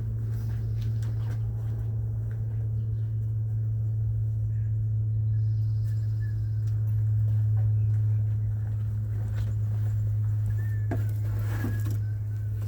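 A steady low hum with no break, with a few faint clicks and knocks over it.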